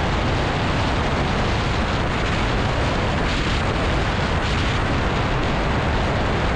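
Yamaha Aerox scooter ridden at speed under steady throttle, its engine mixed into a steady rush of wind and road noise on the camera mic.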